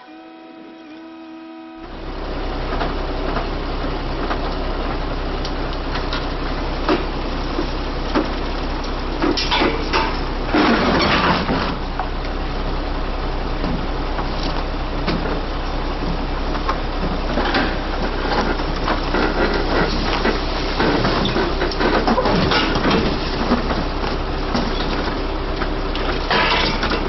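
A heavy truck's engine running loud and steady from about two seconds in, with scattered knocks and clanks over it.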